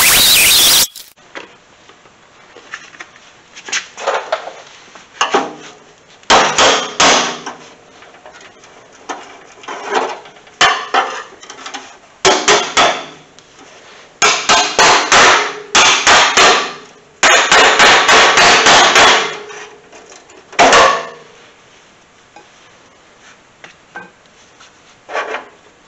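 Repeated bursts of hammering on the sheet steel of a car's radiator support while its spot-welded seams are split. The blows come in clusters of up to about two seconds with ringing after them, separated by short quiet gaps.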